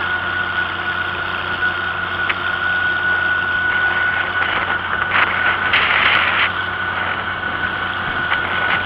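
Vintage Oliver tractor's engine running steadily as it tows a wagon along the road, with a steady high whine over it. A couple of brief bursts of noise come through about five and six seconds in.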